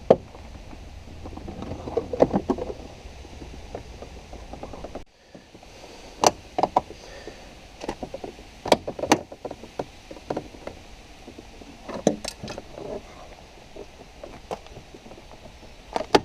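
Plastic trim removal tools prying at a second-generation VW Touran's inside door trim panel, making scattered sharp clicks and knocks as its retaining clips are worked loose.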